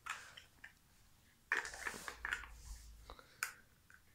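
Large plastic toy building blocks being handled and pressed together: a few light plastic clicks and rattles, with one sharp click near the end.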